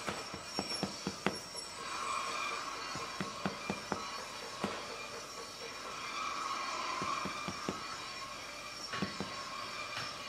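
Scattered sharp taps and knocks from hand work on sand molds on a foundry floor, over a faint wavering squeal that swells twice.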